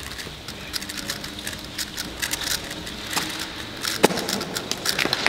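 Rapid, irregular clicking of a 3x3 speedcube's plastic layers being turned, with a sharper click about four seconds in.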